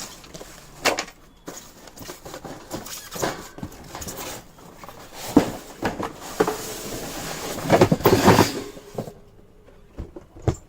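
Fan parts and packaging being handled while unboxing: irregular clicks and knocks of plastic and cardboard, with a louder stretch of rustling and scraping about two-thirds of the way in.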